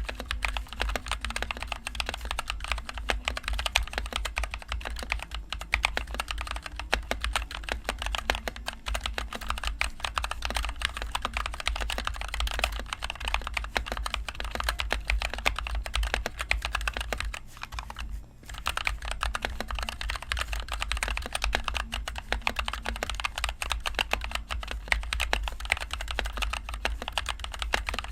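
Fast, continuous typing on a NovelKeys NK65 Entry Edition mechanical keyboard with NovelKeys Cream linear switches and HyperX Pudding keycaps, a rapid run of keystroke clacks. It breaks off for under a second a little past halfway, then carries on.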